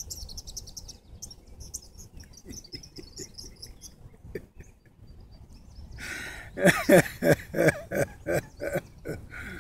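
A man laughing in a string of short bursts, about three a second, beginning about six seconds in and forming the loudest sound. A small bird chirps rapidly and high in the first second.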